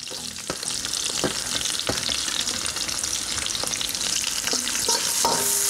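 Sliced red onions sizzling as they go into hot oil with whole spices in a stainless steel kadai, with a few light clicks.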